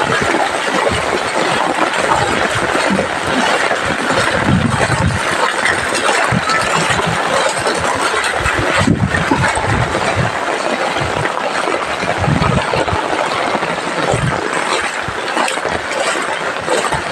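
Heavy rain pouring down, a steady dense hiss, with a few low rumbles.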